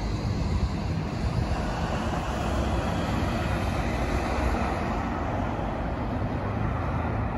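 Steady road traffic noise, an even low rumble with no distinct events.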